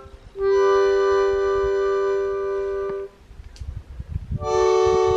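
Accordion holding long, steady chords: one begins under half a second in and stops about three seconds in, and after a short pause a new chord starts near the end.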